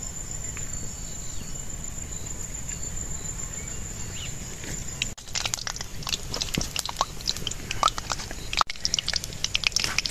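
A steady high insect drone, typical of crickets, for about five seconds. Then, after an abrupt change, hot oil crackles and spits in an iron kadai as whole spices (bay leaves and dried red chillies) fry in it.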